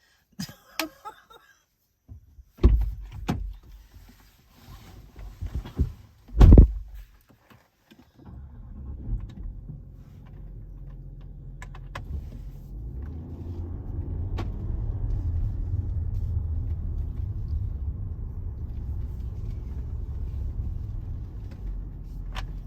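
Car heard from inside: a few knocks and thumps, the loudest about six and a half seconds in, then the engine running with a steady low rumble that builds and holds.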